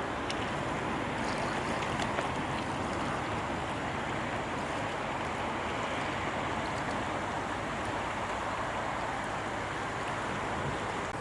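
Steady rush of water with a low, even engine hum beneath it, as from a river motor ship under way.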